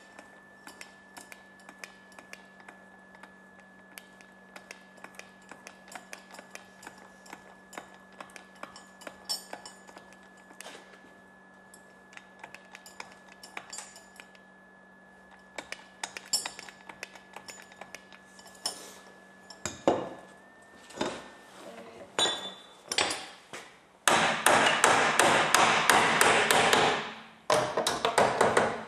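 Scattered light metallic taps and clicks over a steady electrical hum, then louder knocks. About three-quarters of the way through comes a loud run of rapid hammering that stops briefly near the end and starts again.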